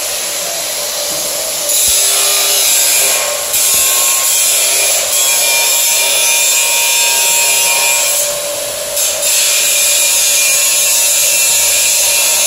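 Makita GA4040C 100 mm angle grinder running with a steady motor whine, then cutting into a steel bar with a loud, hissing grind. The grinding eases off briefly twice as the disc lifts, once about a third of the way in and again past the middle.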